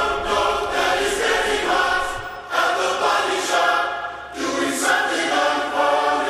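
Background music: several voices singing held chords, choir-like, changing chord a couple of times.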